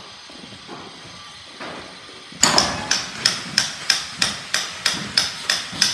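Hammer blows struck at a steady rapid pace, about three a second, each with a sharp ringing edge. They start a little over two seconds in, after a stretch of faint background.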